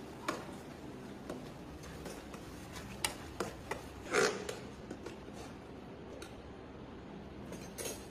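Cooking sounds at a wood-fired clay stove with an iron kadai: scattered light clicks and knocks over a steady low background, with a short louder noise about four seconds in and another near the end.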